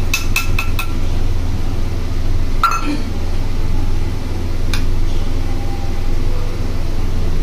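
Steel bowl clinking against an iron kadai as badi are tipped into the greens: a quick run of sharp clinks in the first second, then two more single clinks, over a steady low hum.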